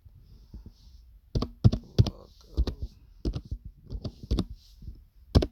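Computer keyboard being typed on: irregular, separate key clicks, a few louder strikes among them.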